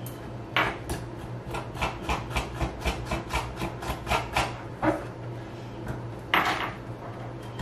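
Kitchen knife tapping and scraping on a plastic cutting board, a quick run of light knocks about three or four a second, as charred skin is cleaned off roasted green pepper halves. A longer, louder scrape comes about six seconds in.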